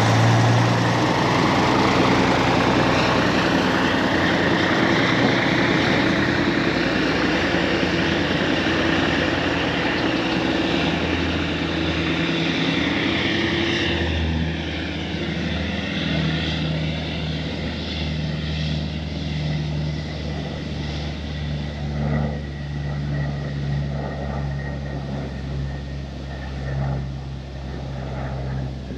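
Kenworth W900 semi truck's diesel engine running under way, with a whine that rises over the first half and then drops as the engine note changes partway through.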